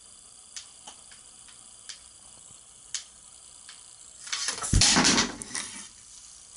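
Wooden Quadrilla marble-run pieces knocking together with a few light clicks, then falling and crashing to the floor in a loud clatter with a thump, a little over four seconds in.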